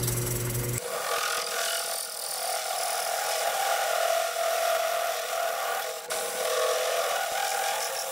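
Delta DP220 drill press driving a 1-inch hole saw through a thin metal disc: a steady grinding screech of the saw teeth cutting the metal, faltering briefly about six seconds in.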